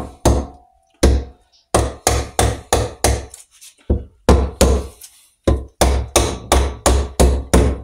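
Copper-faced mallet striking the aluminium crankcase of a Norton Commando 850 engine, a steady series of about twenty sharp taps, roughly three a second. The blows are seating the timing-side case half down over its dowels, studs, crankshaft and camshaft onto the drive-side half.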